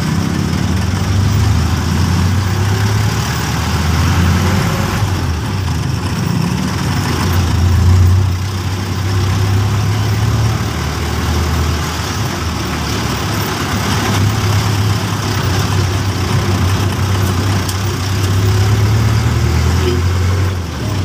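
Passenger jeepney's diesel engine running, heard from inside the cabin as it moves slowly through town traffic. It is a low rumble that swells and eases several times with the throttle.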